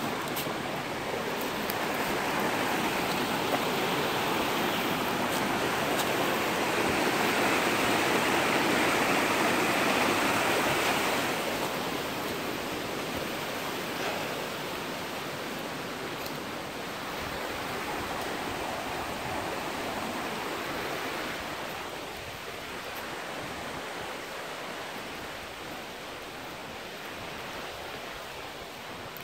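Rushing creek water, a steady noise that grows louder about six seconds in and then fades gradually through the rest.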